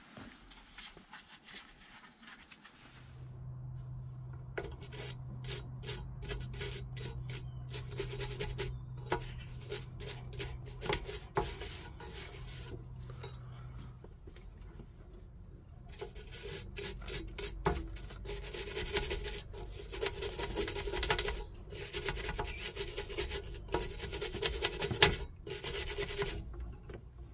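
A small wire brush scrubs rust and grime off the brake pipe union on a rusty drum-brake backing plate in rapid back-and-forth strokes, cleaning the fitting before it is undone. The scrubbing starts a few seconds in and pauses briefly about halfway through.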